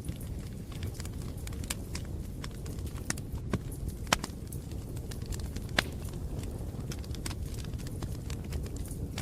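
Campfire crackling: irregular snaps and pops over a low steady rumble of burning wood, with a few sharper pops about three and a half, four and six seconds in.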